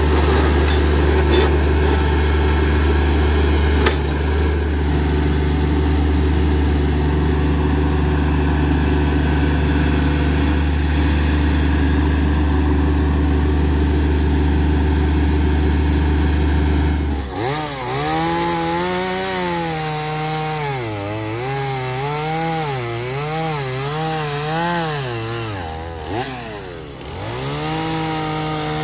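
RK25 compact tractor's diesel engine running steadily for about the first seventeen seconds, then a gas chainsaw cutting through a tree trunk, its pitch rising and falling over and over as it works in the cut, briefly dropping off near the end before picking up again.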